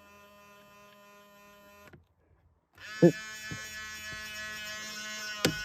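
The 2000 Ford Explorer's power side-mirror motor buzzing with a steady, many-toned hum, an odd 'funny noise' for a mirror motor. It stops for about a second around two seconds in, then starts again louder a little after three seconds.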